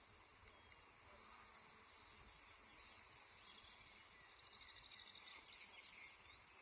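Faint, scattered chirps and calls of birds, over the steady hiss and low rumble of an outdoor nest-camera microphone.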